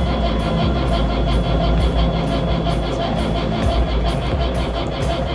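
Background music with a steady beat, over the boat's engine being cranked by its starter motor without catching, the battery voltage sagging under the starter's draw: the house batteries are too low to start the engine.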